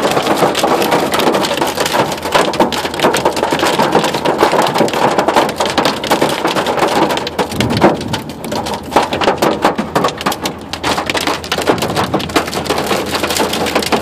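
Hail and heavy rain pelting a truck's windows and body, a loud, dense clatter of many hits heard from inside the closed cab. It thins briefly a little past the middle, then picks up again.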